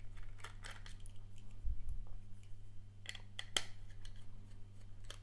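Scattered sharp clicks and light knocks of a 2.5-inch SSD's casing being handled and pried open, with a couple of dull thuds near two seconds. A steady low electrical hum runs underneath.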